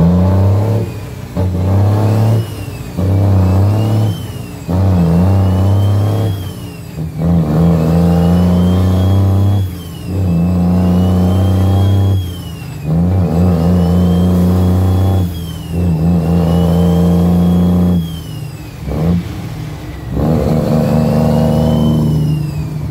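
Cummins L10 diesel engine in an International truck, heard from inside the cab, pulling up through the gears of a 13-speed transmission. The revs climb in each gear, with a whine rising alongside, then drop briefly at each shift, about every two to three seconds.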